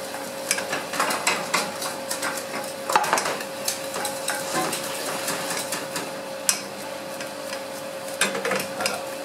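Wooden spatula stirring a butter-and-flour roux in a stainless steel saucepan, scraping and knocking against the pan, with a faint sizzle as the flour cooks in the butter. A couple of sharper knocks come about three and six and a half seconds in, over a steady hum.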